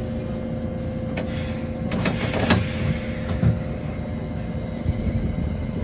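Hakodate city tram running along the street, heard from on board: a steady hum over a low rumble, with a few knocks and rattles from the car, the loudest cluster about two seconds in.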